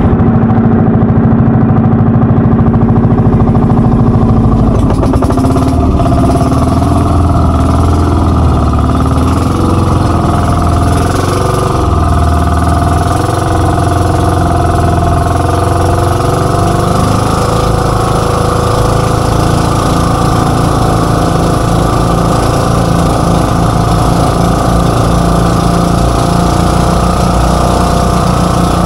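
Twin engines of a fiberglass outrigger boat running steadily at speed, loud. The engine note shifts about five seconds in, and water rushes along the hull.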